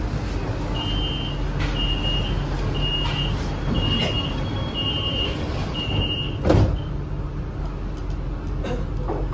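Shanghai Metro Line 9 train's door-closing warning: six evenly spaced high beeps about a second apart over the train's steady low hum, then a single thump as the doors shut.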